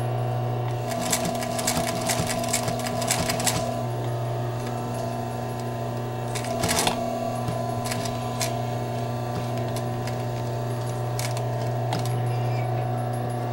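Singer 211 industrial sewing machine stitching through a quilted seat cover and foam in short runs. The needle clatters from about one to three and a half seconds in and again briefly near the middle, with a few single ticks later, over a steady hum.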